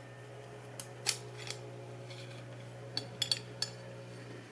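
Light metal clicks and clinks of a stovepipe damper being taken apart by hand, a few single clicks in the first second and a half and a quick cluster of them about three seconds in, over a faint steady hum.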